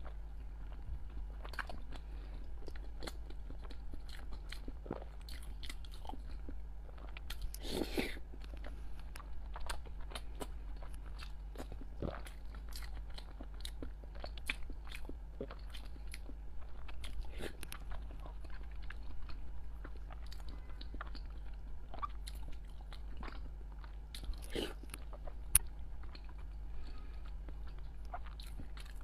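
Close-miked chewing of soft boiled eggs and century eggs: wet mouth sounds and irregular small clicks as she chews and swallows, over a steady low hum.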